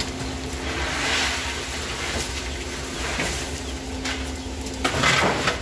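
Hot oil sizzling and a wire basket scraping in a large wok as fried rose crackers (krupuk mawar) are scooped out, with louder rushes of sizzle about a second in and near the end. Beneath it runs a steady low rumble with a faint hum.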